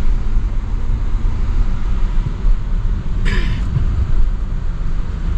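Car road noise heard from inside the cabin while driving: a steady low rumble of engine and tyres. A brief, higher-pitched sound cuts in a little past halfway.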